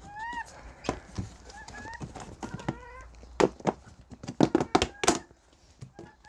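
Plastic powder tub and scoop being handled, with a run of sharp clacks and knocks, loudest a little past the middle. A hen makes short rising-and-falling calls several times.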